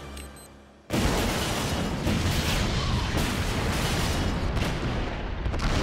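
Cartoon explosion sound effect set off by a remote detonator: a sudden blast about a second in, followed by several seconds of loud, dense blast noise.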